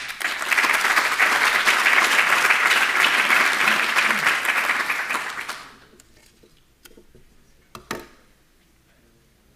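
Audience applauding, dense clapping for about five seconds that then dies away, followed a couple of seconds later by a single short knock.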